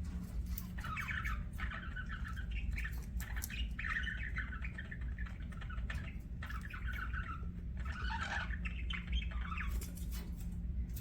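Budgerigars chattering and warbling in repeated runs, with scattered sharp clicks, over a steady low hum.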